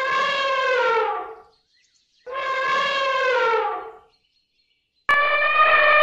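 Elephant trumpeting: two long, loud, horn-like calls, each holding its pitch and then sliding down as it fades, followed by a third call starting about five seconds in.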